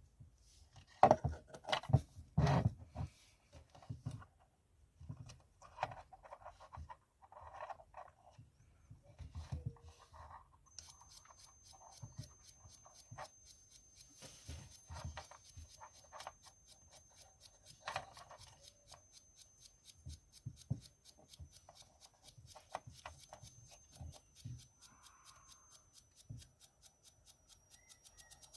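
Scattered clicks, taps and short rubbing sounds of small parts being handled, loudest in the first few seconds. From about a third of the way in, a faint high steady whine with a rapid fine ticking runs under them.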